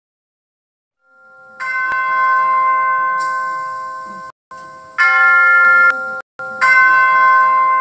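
Bells ringing: several struck bell tones, each ringing on and slowly fading, with the sound cutting off sharply twice between strikes.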